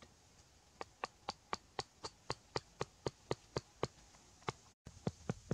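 Chopping at a wooden stick with a small blade: a quick, even run of sharp knocks, about four a second, pausing briefly near the end before a few more strikes.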